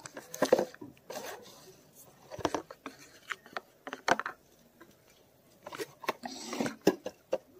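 Metal spoon scraping and stirring dry flour in a plastic bowl, in short irregular scrapes with a few sharp clicks.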